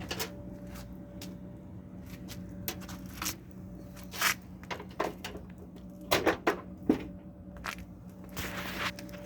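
Scattered clicks and knocks of metal dryer parts being handled and shifted during disassembly, a few close together past the middle, over a steady low hum.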